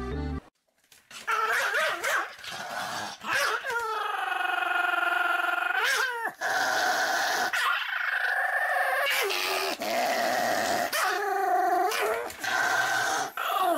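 A Pomeranian dog crying in a run of long, high, wavering whines that bend up and down in pitch, with a few shorter yelps between them.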